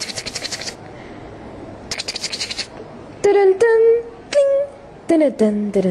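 Wordless cartoon-style vocal sound effects: a rapid clicking rattle twice, about two seconds apart, then from about three seconds in a string of short pitched calls that bend up and down.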